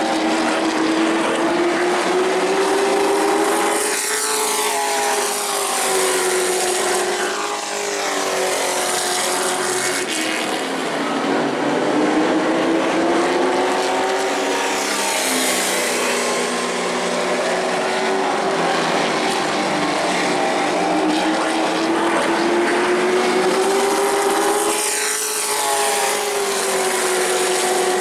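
Two Pro Truck stock-car race trucks racing on a short oval. The engine note rises and falls again and again as they power down the straights and lift for the turns, swelling each time they pass, several times over.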